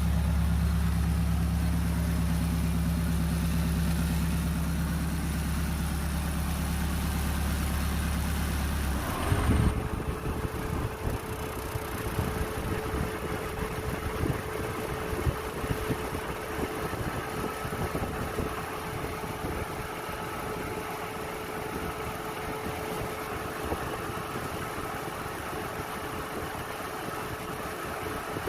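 Suzuki Jimny idling with its electric radiator fan, which switches on automatically when the engine is hot. About nine seconds in the sound changes abruptly: a deep hum drops away and a steady whine rises into place and holds over the engine's idle.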